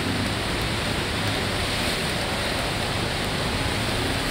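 Steady hiss and rumble of heavy traffic on a rain-soaked road: tyres swishing on wet asphalt under the engines of cars, buses and auto-rickshaws.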